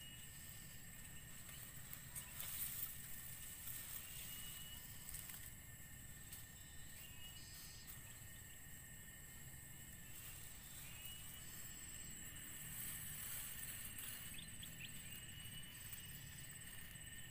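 Steady high-pitched insect drone, with a short rising chirp every three or four seconds, and a soft rustle of dry cogon grass stalks being handled and tied, loudest about two and a half seconds in.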